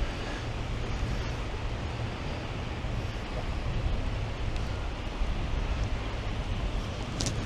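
Steady wind rumbling on the microphone over sea surf, with no distinct events.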